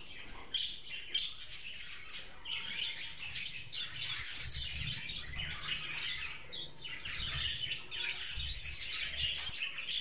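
A colony of budgerigars chirping and chattering: many short, overlapping chirps that keep up without a break.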